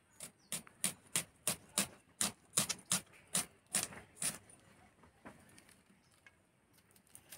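Red onion being sliced on a bonti, the upright curved blade of a Bengali floor cutter: a crisp cut about three times a second for some four seconds, then a few fainter, scattered cuts.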